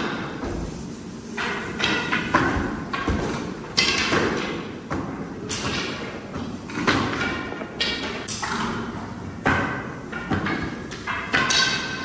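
Long wooden rolling pins (oklava) knocking and thudding on large dough tables as sheets of baklava dough are rolled out, an irregular series of knocks about once a second, each with a short ring.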